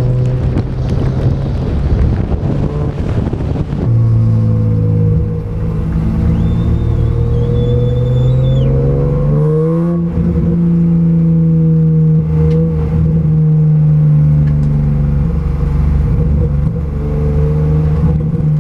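BMW 323ti Compact rally car's 2.5-litre straight-six running at low, fairly steady revs while the car rolls slowly, heard from onboard. The pitch creeps up gently and then holds, and the engine's tone jumps abruptly about four seconds in and again about ten seconds in.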